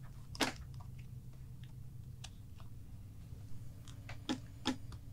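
Leather shoulder-holster strap handled as a fastener is pushed through its slot: scattered small clicks, a sharper one about half a second in and two more near the end.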